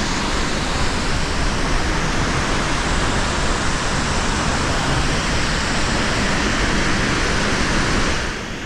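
Vernal Fall's waterfall, a steady loud rush of falling water and spray that eases slightly near the end.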